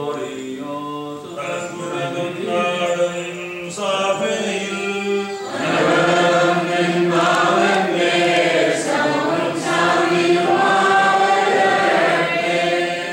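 Malankara Orthodox liturgical chant sung by a group of men's voices. It grows louder and fuller about five and a half seconds in, then ends near the close.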